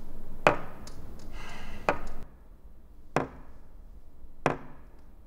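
Four sharp knocks at a slow, even beat, about one every 1.3 seconds, each ringing briefly, over a background hum that drops away about two seconds in.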